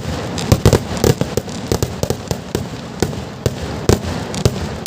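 Kerala temple-festival vedikkettu fireworks going off in a rapid, irregular barrage of sharp bangs, several loud reports among many smaller cracks a fraction of a second apart.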